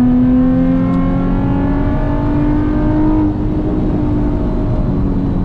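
Nissan 350Z's straight-piped 3.5-litre V6 pulling hard in second gear down a drag strip, its note rising steadily. About three seconds in the pitch drops a little and the engine eases off.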